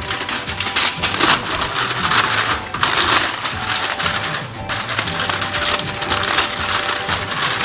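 Aluminium foil crinkling and crackling as it is folded and crimped over a baking tray, over background music.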